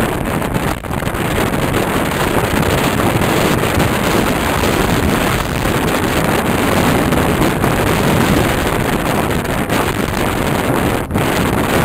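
Steady rush of wind buffeting the microphone over the road and engine noise of a vehicle travelling at speed, with a brief drop near the end.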